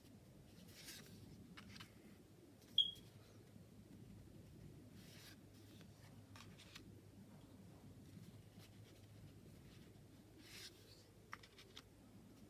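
Tarot cards being handled and flipped: soft swishes of card stock sliding against card stock every few seconds, with a single sharp tick about three seconds in and a few small clicks near the end.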